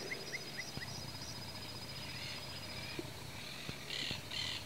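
Faint open-field ambience: a steady high-pitched insect-like trill, a quick series of short falling chirps during the first second, and two brief rustles about four seconds in.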